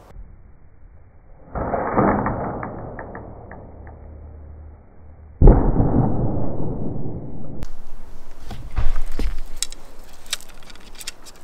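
Slowed-down, deepened sound of a 14-pound children's bow being shot with several arrows at once: two sudden string releases, each fading slowly over a couple of seconds. About two-thirds in, normal-speed sound returns with sharp clicks and a loud knock.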